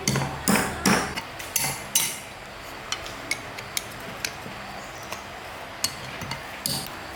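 Metal tools and parts knocking and clinking: a handful of sharp strikes in the first two seconds, then lighter scattered taps and ticks.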